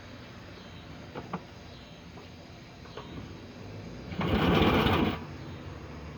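A small engine pull-started once with the choke on: about a second of fast, even cranking that does not catch. A few light knocks come before it.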